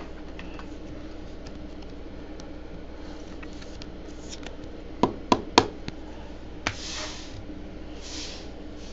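Hands handling trading cards and clear plastic card holders: a quick run of sharp clicks and taps about five seconds in, then soft sliding rustles, over a steady low room hum.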